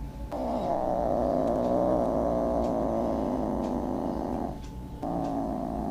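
Domestic cat making a long, continuous low vocal sound, broken by a short pause for breath about four and a half seconds in before it starts again.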